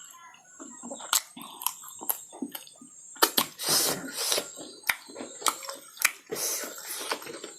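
Close-miked eating sounds of pork being chewed: irregular wet mouth clicks and smacks, with two longer rushing breaths or slurps near the middle and near the end.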